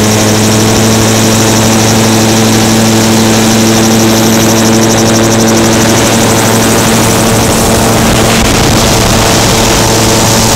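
Gyrocopter's engine and propeller running at a steady pitch in flight, heard from inside the open cockpit.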